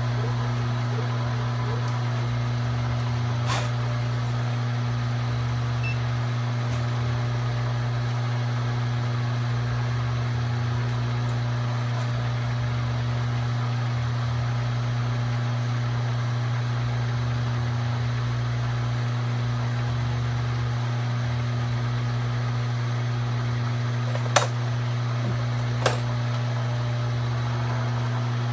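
Grizzly G0704 milling machine's spindle running steadily with a constant hum. There are a few sharp ticks, two of them close together near the end.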